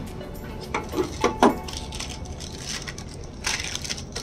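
A few light clicks and taps of a small metal sewing-machine needle plate being handled, with a brief rustle a little past the middle.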